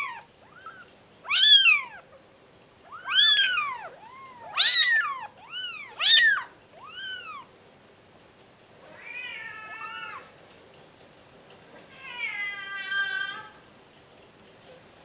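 Two-week-old Bengal kittens mewing: a quick run of short, high, arching mews over the first seven seconds or so, then two longer calls with a wavering pitch.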